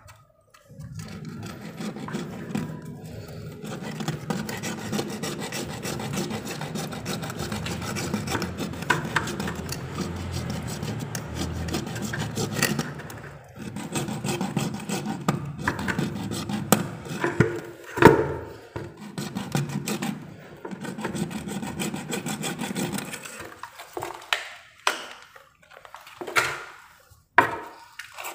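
Continuous scraping and rubbing of hand work at a buried water pipe, with a short break about halfway, turning into short separate scrapes in the last few seconds.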